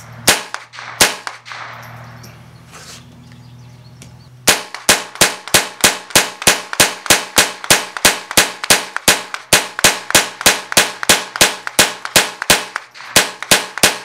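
Colt M4 .22 LR semi-automatic rifle firing: two shots in the first second or so, then from about four and a half seconds in a fast, steady string of about thirty shots, roughly three a second.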